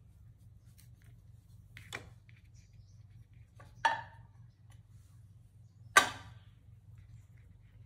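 Three short, sharp clinks of a kitchen knife and a china plate as cake slices are cut and served. The first is light, about two seconds in; louder ones come near four and six seconds, the last the loudest. A low steady hum runs underneath.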